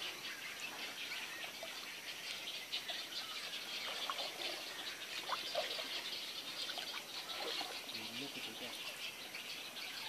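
Wild birds chirping and calling in a dense, high-pitched chorus, with a few short clear notes standing out in the middle of it.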